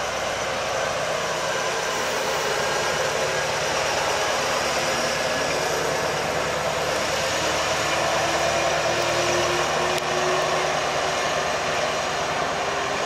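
Steady running noise of trains in a railway station, with a faint whine that slowly rises in pitch through the middle.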